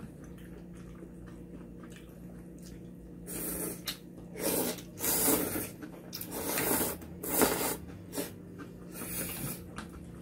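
Two people slurping cold noodles in broth from steel bowls: a quiet start, then half a dozen short, loud slurps from about three seconds in.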